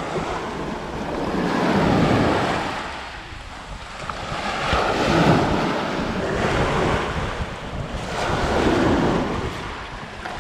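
Small waves breaking and washing up over wet sand at the water's edge, surging in about every two to three seconds, with wind rumbling on the microphone.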